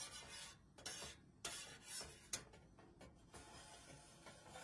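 Faint scraping of a spoon stirring soup in a stainless saucepan, in short uneven strokes, with one sharp click a little past two seconds in.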